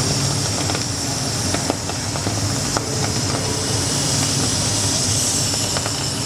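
CNC plasma cutter's torch cutting metal: a steady loud hiss over a low hum, with scattered faint crackles.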